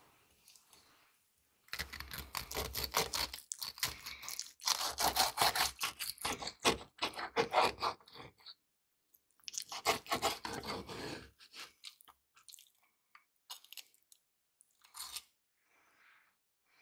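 Crunching through the crisp breaded crust of deep-fried stuffed chicken, in two long spells of rapid crunches, the second shorter, followed by a few scattered single crunches.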